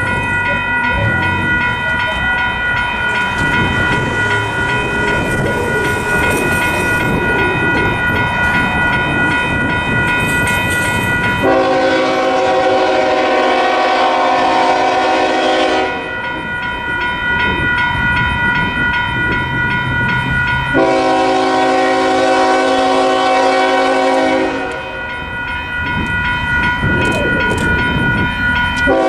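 Nathan K5HL five-chime air horn on a Union Pacific C45ACCTE locomotive, sounded in two long blasts about four seconds each as the freight approaches, with a third blast beginning at the very end. A steady high ringing and a noisy rumble run underneath.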